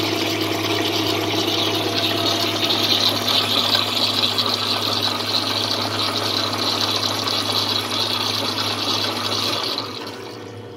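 1967 Rockwell 14-inch lathe running in back gear at its slowest speed with the headstock cover off: the gears churn and splash through the oil bath over a steady hum from the rotary phase converter. The gear and oil noise dies away near the end, leaving the hum.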